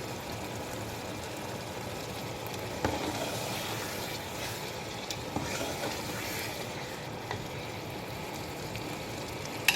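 Chicken curry sizzling and bubbling in its pot as a steady hiss, with a knock about three seconds in and a sharp click near the end.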